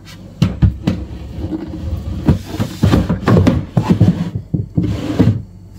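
Irregular knocks and clatter of odds and ends and storage boxes being handled and put away, a run of sharp hits that stops shortly before the end.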